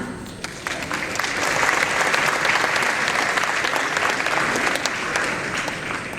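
Audience applauding, building up over the first second or so and tapering off near the end.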